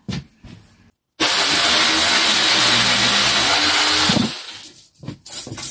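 Electric jigsaw sawing through a wooden batten: it starts abruptly about a second in, runs loud and steady for about three seconds, then winds down. A few sharp knocks of wood follow near the end.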